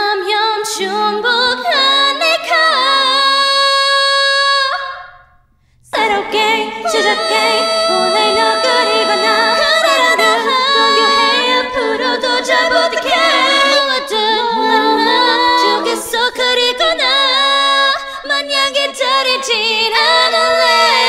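Several multi-tracked female voices singing a cappella in harmony, with no instruments. The singing stops for about a second near five seconds in, then all the parts come back in together.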